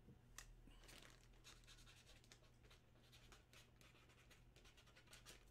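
Near silence: room tone with faint, irregular light clicks.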